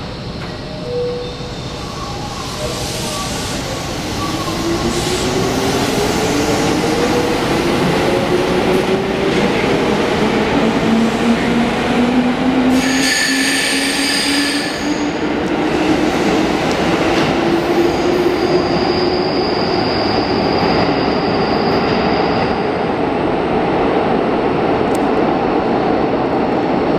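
JR 205-series electric commuter train pulling out of an underground station: a motor whine rising steadily in pitch as it accelerates, over a growing rumble of wheels on rail, echoing in the tunnel. A brief high ringing comes about thirteen seconds in, and a thin high squeal from about nineteen to twenty-three seconds in.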